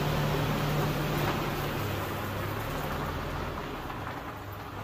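Nissan Hardbody pickup's engine running as the truck backs away, a low hum that drops in pitch about two seconds in and fades as the truck moves off.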